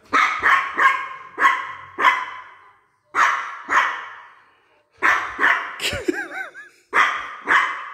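Miniature pinscher barking sharply and repeatedly in quick groups of barks with short pauses, with a brief wavering whine about six seconds in. The barking is impatient and anxious, the dog waiting for her promised treat.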